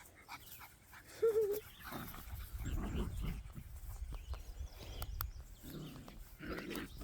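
Seven-week-old Miniature American Shepherd puppies playing, with a short wavering whine about a second in and low scuffling noise and small yips after it.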